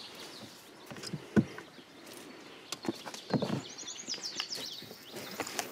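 A bird chirps a quick run of high, falling notes about four seconds in. Under it are scattered knocks, with the sharpest one about a second and a half in.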